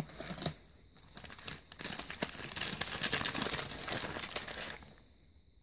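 Packaging crinkling as it is handled and unwrapped, a dense crackle of many small crinkles for about three seconds that stops near the end.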